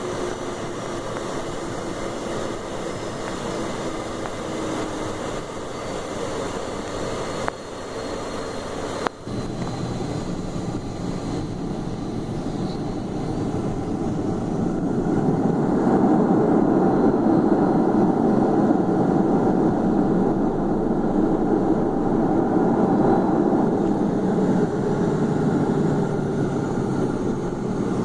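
Cessna Citation V business jet during its landing, with steady engine and rushing air noise and a slowly falling tone at first. There are two short knocks about seven and a half and nine seconds in. About fifteen seconds in the noise swells markedly louder and stays up.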